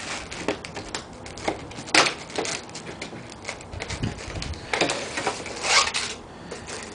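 A headphone box being opened and unpacked by hand: irregular rustling, scraping and clicking of packaging, with louder rips about two seconds in and again around five and six seconds.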